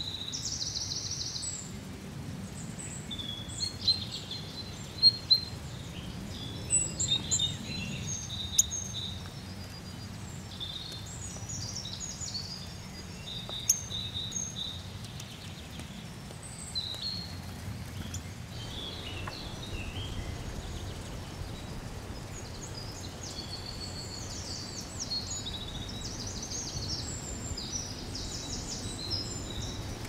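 Several small songbirds chirping and singing: quick high notes and trills throughout, over a steady low background rumble. A few sharp clicks stand out in the first half.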